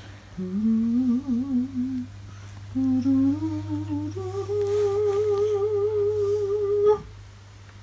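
A high voice humming a wavering tune in three phrases, each a little higher, the last held for nearly three seconds with a steady wobble in pitch, then cut off.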